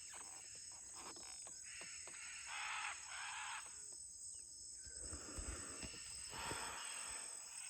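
A macaw calling as it passes, several harsh calls, two close together about two and a half seconds in and more near the end.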